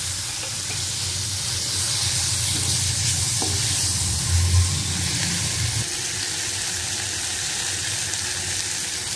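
Tomato and onion pieces frying in hot oil in a kadai, with a steady sizzle, while a wooden spatula stirs them round the pan.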